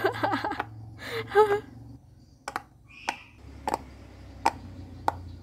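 Rainbow silicone pop-it fidget toy being pressed with the fingers, its bubbles popping in sharp single clicks, about five of them spaced well under a second apart in the second half.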